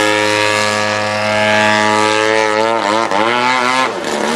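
Radio-control aerobatic airplane's engine and propeller running: a steady tone at first, then the pitch wavers up and down in the last second and a half as the plane maneuvers.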